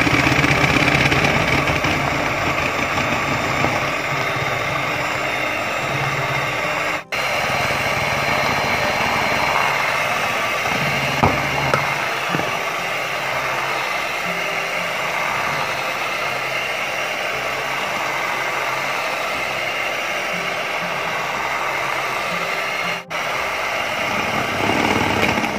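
Electric hand mixer running steadily, its beaters whirring through a thin egg-and-oil cake batter as powdered sugar is beaten in. The sound breaks off for an instant twice.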